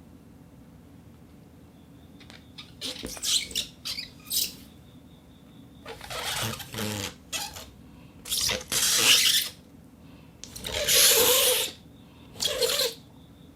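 Rubber band rubbed against a rosin-coated board for a foley rubber-band effect: a series of short rubbing strokes, the first about three seconds in, each lasting up to about a second with short gaps between.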